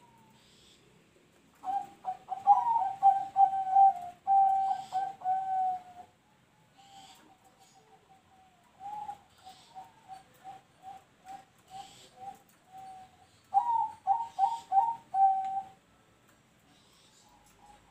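Caged zebra dove (perkutut) cooing in its staccato song: a quick phrase of loud coos about two seconds in, a run of short, evenly spaced softer coos in the middle, and another quick loud phrase near the end. The song is of the type keepers call "noklak nekung".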